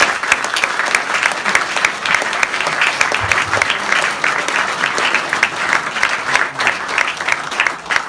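Audience applauding steadily, a dense clapping that carries on throughout without letting up.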